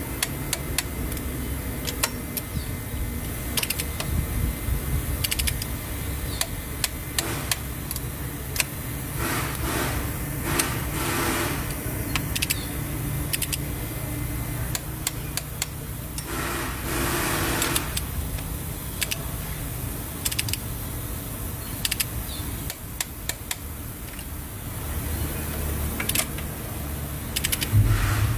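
Torque wrench on an extension tightening cylinder head bolts to 40 Nm: scattered sharp clicks and a few short stretches of ratcheting, over a steady low rumble.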